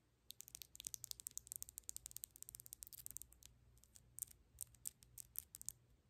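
Long press-on acrylic nails tapping, a rapid run of light, sharp clicks for about three seconds that then thins out to scattered clicks and stops shortly before the end.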